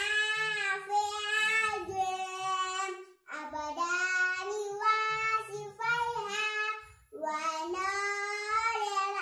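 A young girl singing in long, held notes, in three phrases with short breaks between them, about three and seven seconds in.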